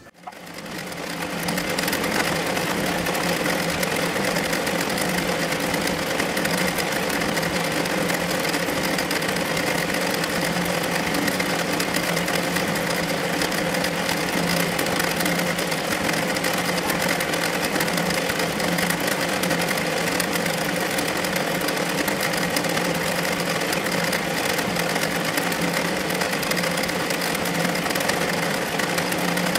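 Redline Mini multi-needle embroidery machine stitching a design, running at a steady pace. Its sound fades in over the first two seconds.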